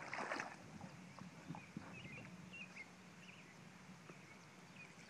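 A dog splashing through shallow pond water as it wades in, the splashes strongest at first and fading to faint, scattered sloshes as it starts to swim.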